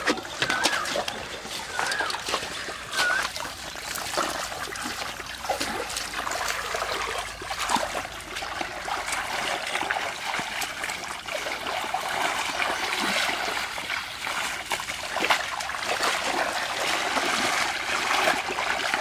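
Hands splashing and scooping through shallow muddy water and mud, with many small irregular splashes and trickles.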